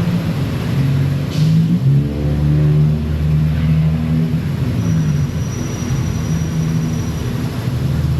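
A motor vehicle's engine running, its pitch shifting up and down, strongest between about two and four seconds in.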